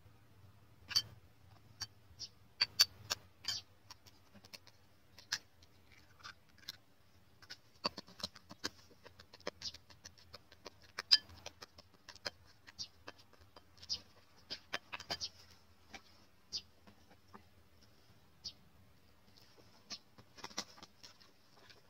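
Metal spoon clicking and scraping against a bowl while stirring flour and egg into a batter, in irregular, uneven taps.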